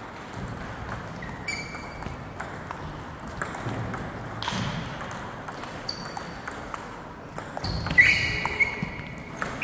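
Table tennis rally: sharp clicks of the celluloid-type ball on the bats and table, a few a second. A few short high squeaks come between them, the loudest near the end.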